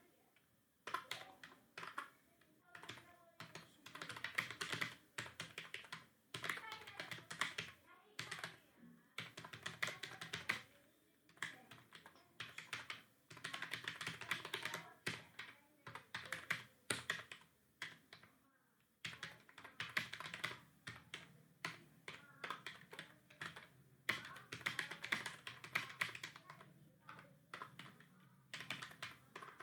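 Typing on a computer keyboard: rapid key clicks in bursts of a second or two, separated by short pauses.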